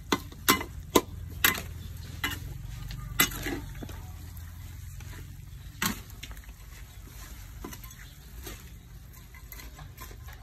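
Metal spatula knocking and scraping against a wok as chopped duck and greens are stir-fried. There are a handful of sharp clanks in the first few seconds and one more near six seconds, over a low steady rumble.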